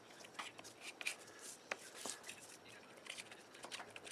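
Faint, irregular light clicks and taps of hands handling small hard objects.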